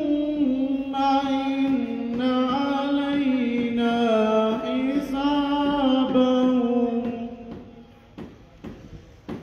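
A man reciting the Quran in the melodic tilawat style into a microphone: one long phrase of held, ornamented notes that trails off about three quarters of the way through, leaving a short pause.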